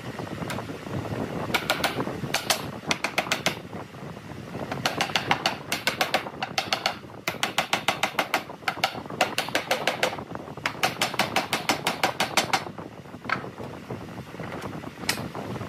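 Quick runs of sharp knocks from a wooden block tapped against the corner of a pine window frame, closing up its joints. There are four bursts of about five knocks a second, then a few scattered taps near the end.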